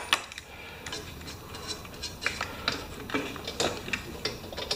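Light, irregular clicks and taps of a wrench and hands working on a lawnmower engine, two or three a second.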